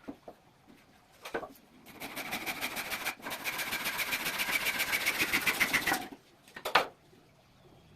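A woodworking tool at work making a rapid, even run of mechanical clicks, about ten a second, for about four seconds. It breaks briefly once, and there is a single knock just before it starts and another just after it stops.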